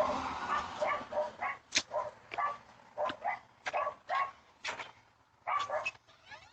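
A dog barking repeatedly: about a dozen short barks at uneven intervals.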